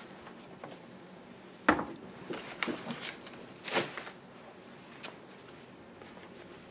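Fabric and sewing machine being handled: a few scattered sharp clicks and knocks, with a short rustle of cotton fabric about four seconds in, as pinned fabric is set under the presser foot of a home sewing machine.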